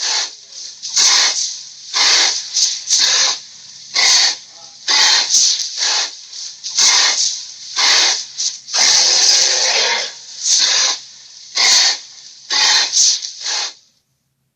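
Dinosaur hissing sound effect: a string of short, loud, breathy hisses about one a second, with one longer hiss about nine seconds in.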